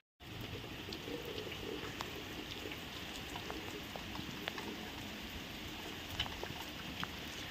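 Light rain falling: a steady hiss with scattered single drops ticking close to the microphone.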